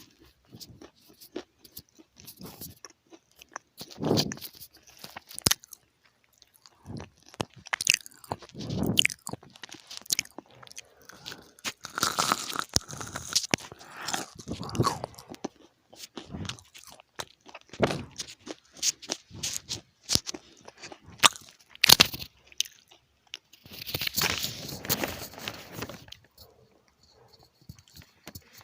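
Close-up crunching and chewing of crisp food: irregular bites and chews, with louder stretches of crunching about twelve and twenty-four seconds in.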